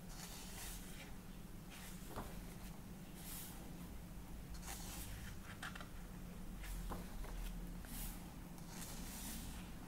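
Pages of a paperback colouring book being turned by hand: several soft paper swishes with light paper ticks, over a low steady hum.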